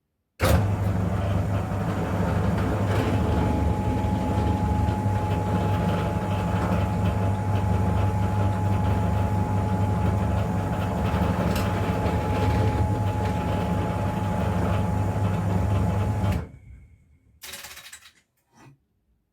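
Drill press running as it drills holes in a piece of wood. It starts suddenly, runs steadily with a low hum and a thin steady whine, and cuts off about three seconds before the end. Two short noises follow.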